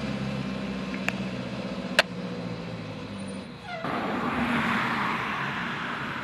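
Steady low engine hum with two sharp clicks, about one and two seconds in. After a cut near the middle, a steady rushing hiss takes over.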